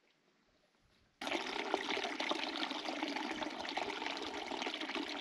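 Shallow rocky creek running over stones, a steady trickling rush of water that cuts in suddenly about a second in after near silence.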